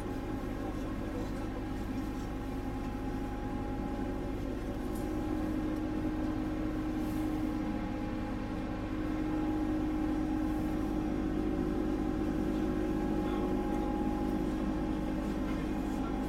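Steady machinery hum aboard the Vendémiaire, a French Navy frigate, with a low rumble and several constant tones. It grows slightly louder about a third of the way in and again around halfway.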